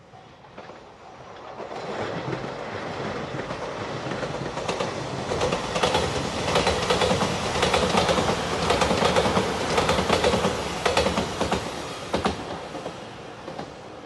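A five-car Shiokaze limited express electric train passing at speed. It starts as a growing rumble, then brings a dense run of rapid wheel clacks over the rail joints, loudest in the middle, and fades as the train moves away near the end.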